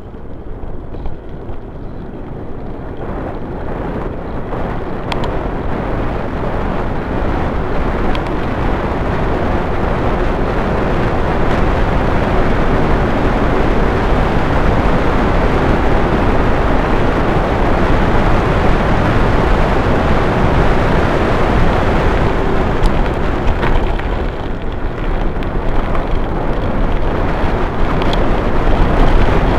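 Wind rushing over the microphone of a handlebar-mounted action camera on a fast bicycle descent, with tyre rumble on the road. It grows louder over the first ten seconds as speed builds, eases briefly a little over twenty seconds in, then rises again.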